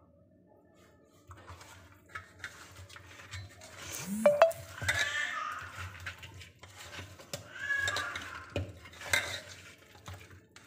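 Hands mixing raw fish pieces with spice powder in a steel bowl: wet rubbing and irregular knocks against the bowl, with a louder knock about four seconds in.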